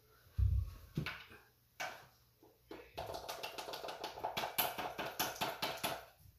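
A paint roller being worked back and forth in a paint tray to load it: a few knocks, then a quick run of rhythmic strokes about five a second for some three seconds.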